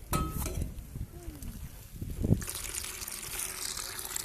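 Penned dairy calves giving short bawls, one louder near the middle, then water running and trickling steadily from about two and a half seconds in.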